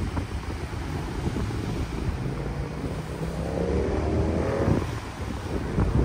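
Sea waves washing on a shore, with wind buffeting the microphone as a low rumble. A short pitched hum rises over it about three and a half seconds in.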